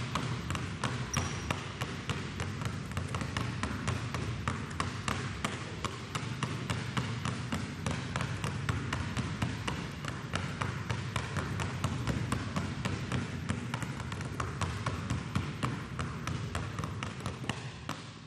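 Two basketballs dribbled on a hardwood gym floor, a steady run of quick bounces, about three to four a second, that cuts off suddenly at the end.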